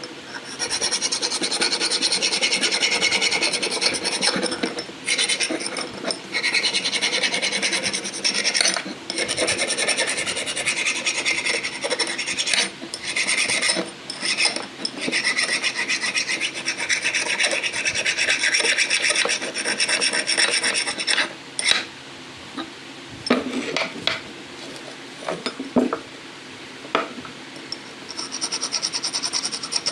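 Continuous abrasive rasping as a metal or wooden part is worked down, broken by short pauses. It stops after about twenty seconds, followed by a few short scrapes.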